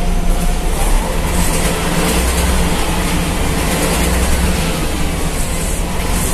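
Ikarbus IK-103 city bus heard from inside the passenger cabin while driving: a steady low engine drone under continuous road noise.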